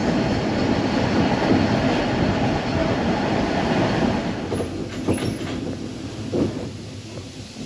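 Isle of Man Steam Railway train heard from inside a carriage, its wheels running on the narrow-gauge track. The running noise fades over the second half as the train slows into a station, with a few clunks near the end.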